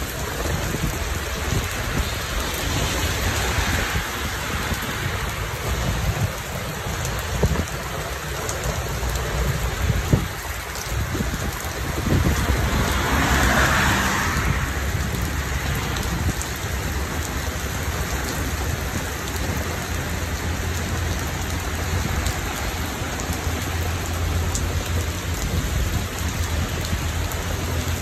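Heavy rain pouring steadily onto a street and tree leaves in a dense, even hiss. The hiss swells louder for a few seconds about halfway through.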